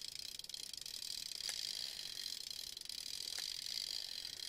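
1946 Bolex H16 16mm cine camera's spring-wound clockwork motor running the film mechanism: a steady high whirr with fast, fine ticking.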